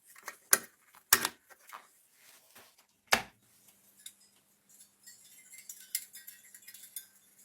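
Hard objects being handled: three sharp knocks in the first few seconds, then a faint steady hum and a run of light rattling clinks near the end.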